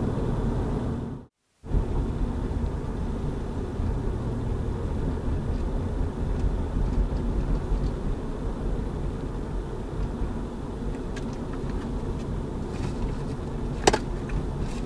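Steady engine and road noise inside a moving car, cut off briefly by a short silent gap about a second and a half in, with a single sharp click near the end.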